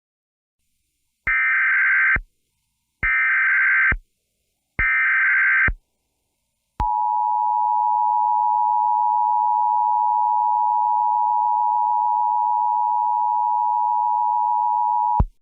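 Emergency Alert System tones: three short bursts of SAME digital header data, each about a second long, then the steady two-tone EAS attention signal held for about eight seconds and cut off sharply.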